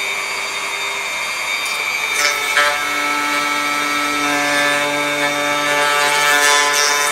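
Corded handheld electric power tool planing a wooden board, its motor running steadily under load. Its pitch shifts slightly as the cut bites, with a few short hissing rasps of the cutter in the wood.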